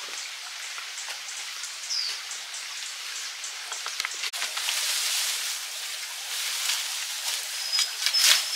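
Steady rain falling, an even hiss sprinkled with many small drip ticks. A brief high falling chirp sounds about two seconds in.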